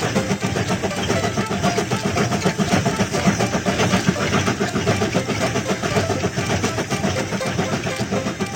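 Sound effect of a cartoon train's engine running steadily, a fast, even rattling chug.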